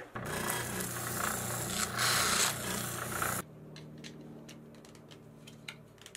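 Spindle sander running with a steady motor hum while a plastic dust-shoe insert is sanded against the drum, a loud rasping noise that cuts off abruptly about three and a half seconds in. A faint hum and a few light plastic clicks follow.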